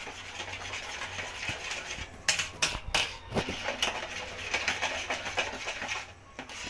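Metal spoon stirring and beating creamed butter and egg in a plastic bowl, scraping against the sides, with a few sharp knocks against the bowl about two to three and a half seconds in.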